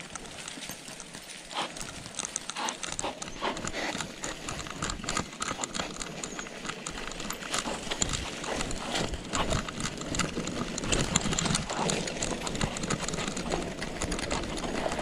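Mountain bike riding over a rough trail: the tyres rolling and the bike rattling with many quick, irregular knocks and clicks, slowly getting louder.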